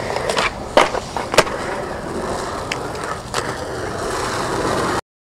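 Skateboard wheels rolling over a concrete bowl, with a few sharp clacks of the board, then the sound cuts off suddenly near the end.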